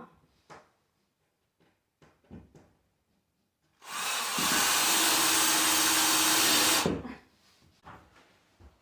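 A few light knocks and handling clicks, then a power tool runs loudly and steadily for about three seconds and cuts off abruptly.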